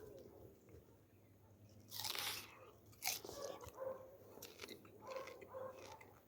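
Crisp bites and crunching into a star fruit, with chewing: one big crunchy bite about two seconds in, another about three seconds in, then smaller crunches.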